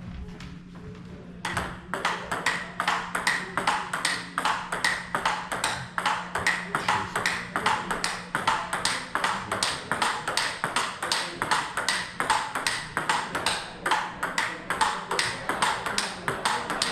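Table tennis warm-up rally: the ball clicks alternately off the paddles and the table in a steady rhythm of about four hits a second, starting about a second and a half in. One of the paddles carries a new rubber being tested.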